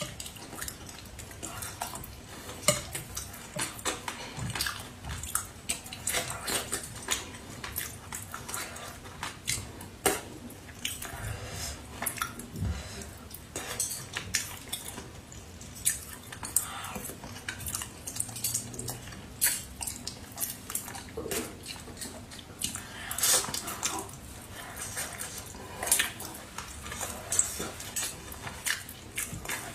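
Close-up eating sounds: chopsticks clicking and scraping on a plate and a metal bowl while picking at braised fish, with chewing and lip smacks between them, in irregular clicks.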